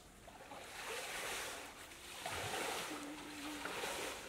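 Pond water sloshing and splashing around a man wading waist-deep while he gathers a wet cast net, coming in slow swells of hiss about a second or two long.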